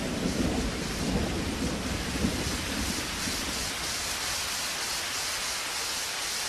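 Steady rain hissing, with thunder rumbling low through the first few seconds and dying away about halfway through.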